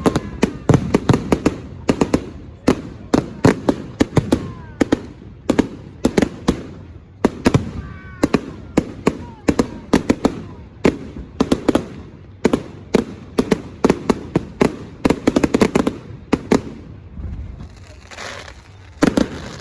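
Fireworks display: aerial shells bursting in rapid volleys, many sharp bangs in quick succession, easing off briefly near the end before the bangs start again.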